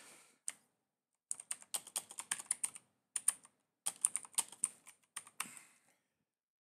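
Typing on a computer keyboard: a run of quick key clicks, with a pause of about a second halfway through. The typing stops shortly before the end.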